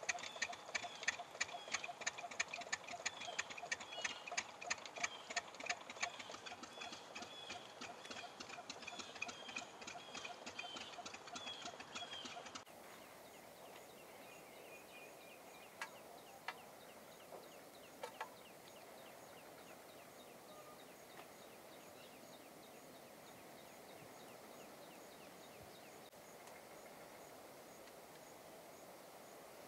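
Swallows twittering in a rapid, steady stream of chirps, cut off abruptly about twelve seconds in. After that there is a faint outdoor background of insects, with a few soft clicks a few seconds later.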